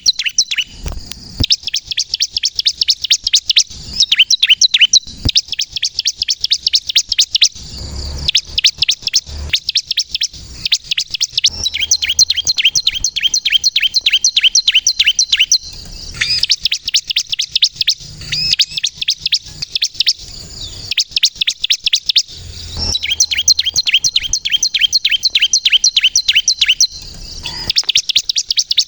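Bar-winged prinia (ciblek kristal) singing: rapid runs of sharp, high, down-slurred chirps in bursts of a few seconds with short breaks between.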